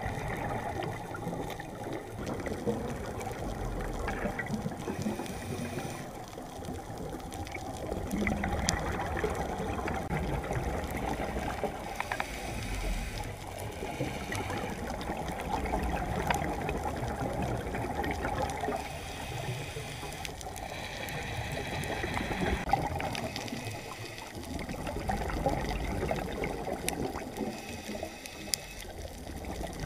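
Underwater ambience picked up by a diving camera: a steady muffled rush of water that swells and eases every several seconds, with scattered faint clicks and crackles.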